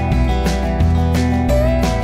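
Background music with a steady beat; a note slides up about three-quarters of the way in.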